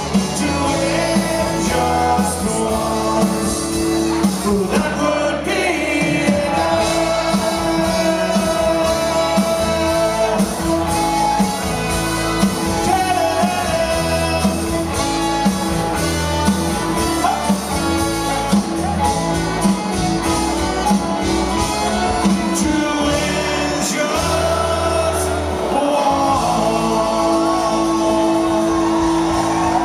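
Live rock band playing in a concert hall, with guitars and drums, singing, and shouts from the crowd.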